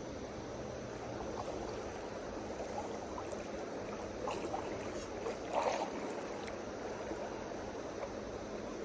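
River water rushing steadily over rocks around a wading angler, with a couple of brief louder sounds around the middle.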